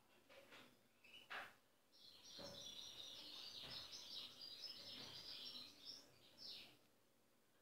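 European goldfinch singing: a few short call notes, then a fast, continuous high twittering song lasting about five seconds, faint.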